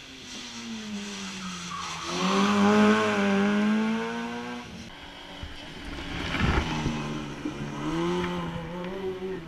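Hillclimb race car engine revving hard and changing pitch through the corners, loudest about two seconds in as it comes close, with tyre squeal, and revving up again near the end.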